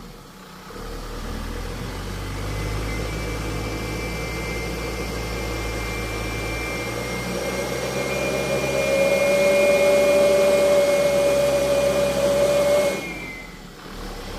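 Loaded dump truck's engine revving under load as it strains through soft, muddy ground beside a ditch. It builds, then grows louder with a steady whine from about eight seconds in, and drops off suddenly near the end.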